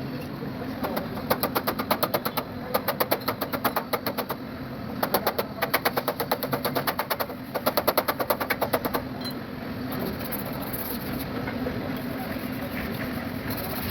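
Four quick runs of sharp taps, about seven a second, over a steady low hum; the taps stop about nine seconds in and the hum carries on alone.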